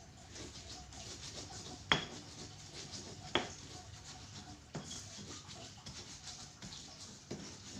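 A metal utensil knocking against a cooking pan a few times with a short ring, the loudest strike about two seconds in, over a faint steady hiss.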